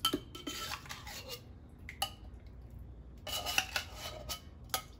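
A metal whisk and a tin can clink and scrape against a ceramic mixing bowl in several short bursts as thick cream of chicken soup is worked out of the can.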